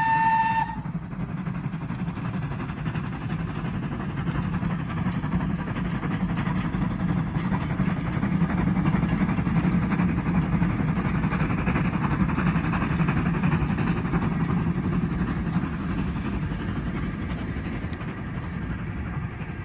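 A Great Western steam locomotive's whistle cuts off about half a second in. Then comes the steady running noise of the steam-hauled passenger train going past, which swells through the middle and fades toward the end as the train draws away.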